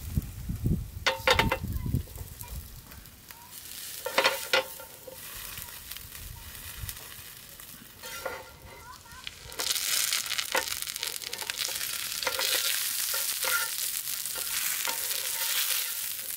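Asparagus and tomato frying in a hot pan, a steady sizzle with a few sharp knocks of a utensil against the pan. The sizzle grows louder and denser about ten seconds in.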